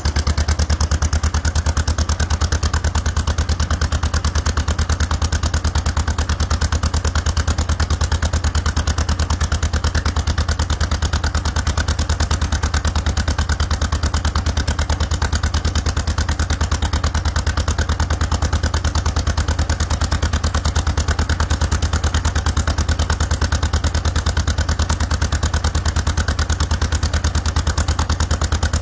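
1954 John Deere 40's two-cylinder engine idling steadily after a cold start, an even run of exhaust pulses with no change in speed.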